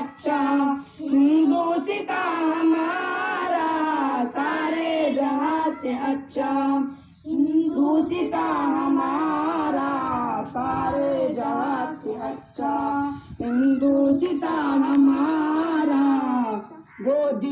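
A child singing a slow melody, in held phrases a few seconds long with short breaks for breath between them.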